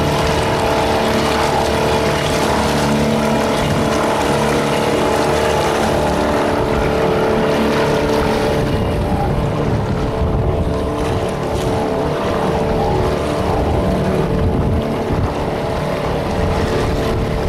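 Boat motor running steadily under way, with wind buffeting the microphone.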